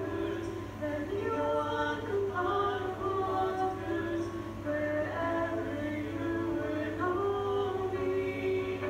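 Live singing of a slow worship song with keyboard accompaniment, amplified through a PA: long held notes that glide from one pitch to the next, over a steady low hum.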